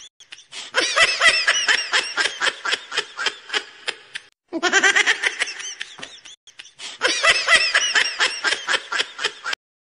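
High-pitched human laughter, a run of quick cackling pulses that breaks off about four seconds in and starts again with the same pattern, stopping shortly before the end.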